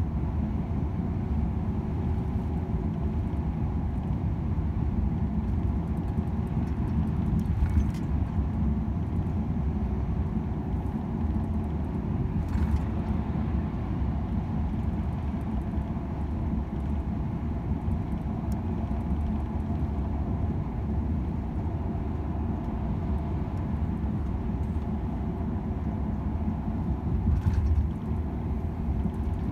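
Volvo FH 500 truck's 13-litre six-cylinder diesel running steadily under way, over a constant low rumble of road noise. A few brief ticks stand out, about 8 and 13 seconds in and near the end.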